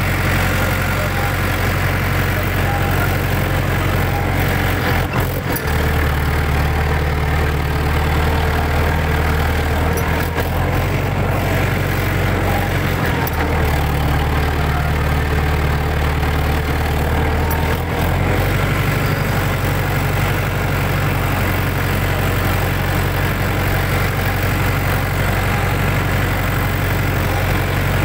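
Farm tractor's diesel engine running steadily at about 1500 rpm, heard from the driver's seat, as the tractor drives over tilled ground. The engine note shifts slightly about 6 and 18 seconds in, and a few faint knocks come through.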